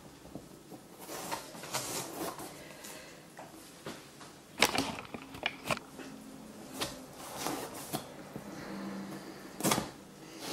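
Serrated knife sawing back and forth through a large marrow's tough skin and firm, soap-like flesh in repeated uneven strokes. A few sharp knocks come about halfway through and again near the end.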